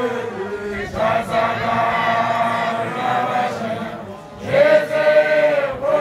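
A group of voices chanting in long, held notes that bend in pitch. The chant dips briefly about four seconds in, then comes back strongly.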